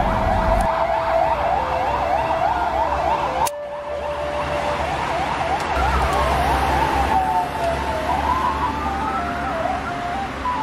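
Emergency vehicle sirens: a fast warbling yelp for the first few seconds, breaking off about three seconds in, then slower rising and falling wails, over a steady siren that steps between two tones.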